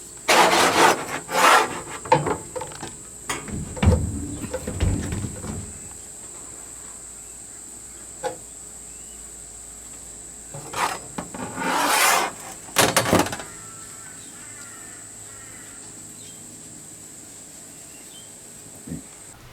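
Rubbing, scraping and knocking as a camp table and its support frame are handled and fitted together. The noises come in irregular bursts in the first six seconds and again about eleven to thirteen seconds in, over a faint steady high tone.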